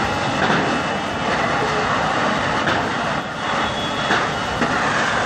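Steady, loud din of firefighting: fire-hose jets spraying water and fire-engine pumps running, with no single sound standing out.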